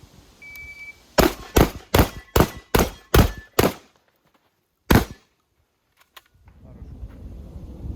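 Beretta 1301 Comp Pro semi-automatic 12-gauge shotgun firing a rapid string of seven shots about 0.4 s apart, then one more shot about a second later. A short high beep comes just before the string, and a couple of faint clicks follow near the end.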